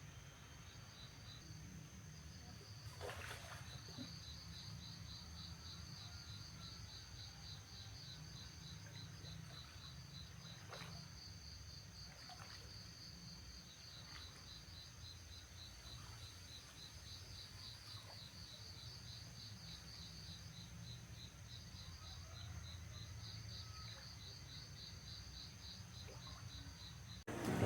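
Faint insects, cricket-like, trilling in the countryside: a steady high whine with a fast pulsing trill beneath it that runs on and off. A low hum sits underneath, with a few soft knocks.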